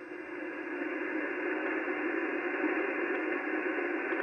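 Steady static hiss from a ham radio receiver tuned to the 80-metre band, heard in the gap between stations' voice transmissions.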